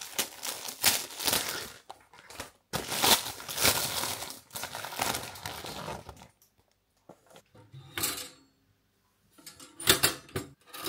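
A thin plastic bread bag crinkling and rustling as it is opened and a slice is pulled out, for about six seconds. Then it goes quieter, with a few short knocks as bread goes into a toaster slot near the end.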